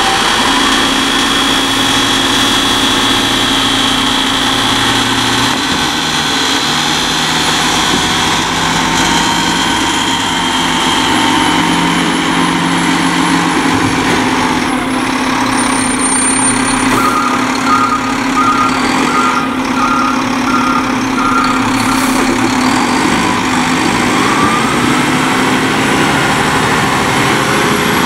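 Diesel engine of an E-Z Pack rear-loader garbage truck running steadily as the truck pulls away and drives past.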